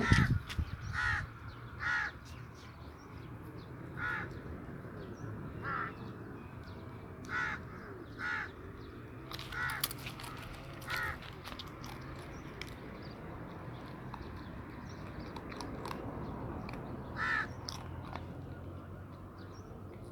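A bird calling repeatedly, about ten short calls a second or two apart, over a low steady hum. A sharp knock right at the start.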